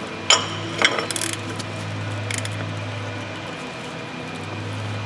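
Metal tools clinking against a heavy truck's rear wheel hub: two sharp clinks in the first second, then a steady low hum.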